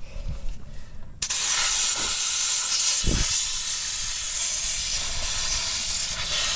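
Compressed air hissing steadily from a portable air tank's hose into a flat tire. The hiss starts abruptly about a second in and lasts about five seconds.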